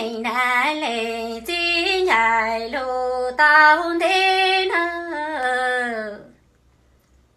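A woman singing kwv txhiaj, Hmong sung poetry, unaccompanied, in long held notes joined by wavering slides. The last phrase steps downward and ends about six seconds in.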